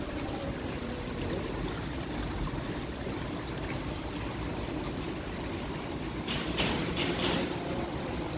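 Water spilling over the rim of a stone urn fountain into a shallow pool, a steady trickle, with a couple of brief louder rushes of hiss near the end.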